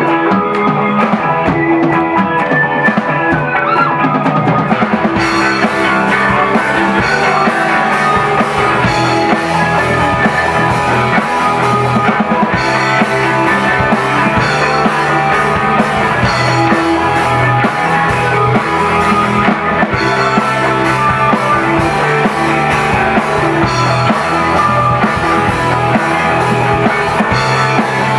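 Live rock band playing with drum kit and guitar; the cymbals come in about five seconds in, and the band plays on at a steady loud level.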